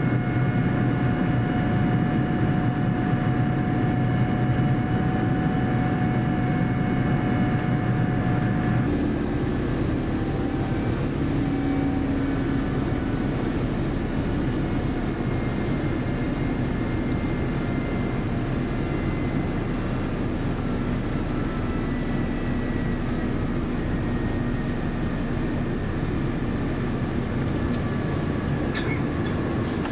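Cabin noise of an Airbus A350-900 climbing out after takeoff: the steady drone of its Rolls-Royce Trent XWB engines and airflow, with several steady whining tones. About nine seconds in the level drops slightly and the tones change pitch, and there is a faint click near the end.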